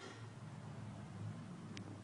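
Faint room noise: a steady low hum with light hiss, and one small click near the end.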